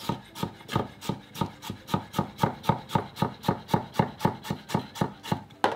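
Chef's knife slicing raw butternut squash thin on a plastic cutting board: quick, even cutting strokes, about five a second.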